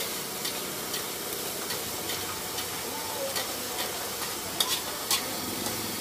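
Green mussel shells clinking on a plate as they are stirred through their sauce: scattered sharp clicks, the loudest few close together near the end, over a steady hiss.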